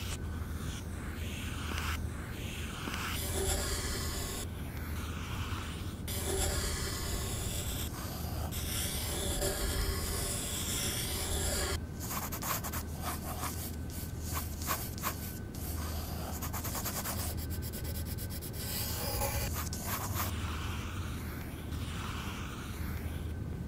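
Pencil scratching on paper in a run of drawing strokes, some long and sweeping, with a stretch of quick short back-and-forth strokes in the middle, over a steady low hum.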